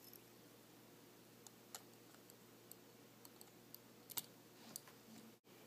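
Faint, scattered light clicks of a small screwdriver and metal parts at the tiny case-back screws of a Timex wristwatch being taken open, about eight ticks spread over a few seconds with a slightly louder pair a little past four seconds in.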